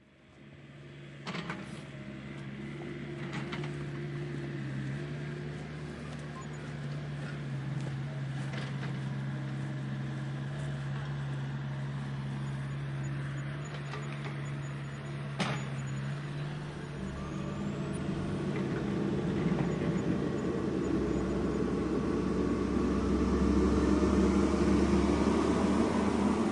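Heavy diesel-style engine sound of an RC construction machine running steadily, growing louder and deeper over the last several seconds, with a few sharp clicks along the way.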